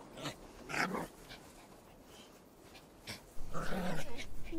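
A small dog barking: two short yaps in the first second, then a longer, louder burst of barking from a little over three seconds in.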